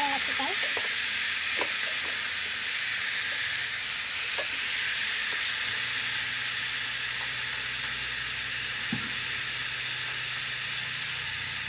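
Raw chicken pieces sizzling as they sear in a pot, a steady frying hiss. A wooden spatula stirs and scrapes the pot a few times in the first half, and a low steady hum joins about halfway.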